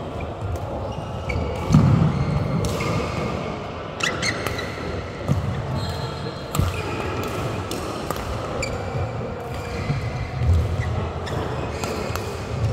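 Badminton rally: rackets striking the shuttlecock, with shoes squeaking and feet thudding on the court, echoing in a large sports hall.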